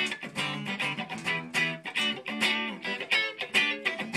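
Electric guitar played through a guitar amplifier: a quick run of picked notes and chords, several strikes a second.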